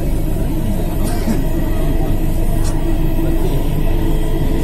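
Delhi Metro train running on elevated track, heard from inside the carriage: a loud, steady rumble with a steady droning tone under it.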